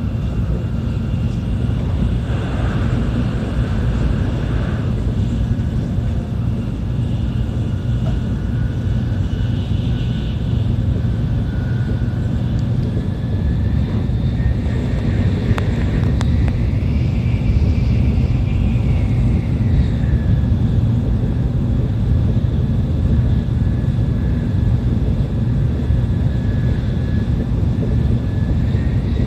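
Cabin noise of a Tokaido Shinkansen Nozomi train running at speed: a steady low rumble, with a faint higher whine that rises and falls near the middle.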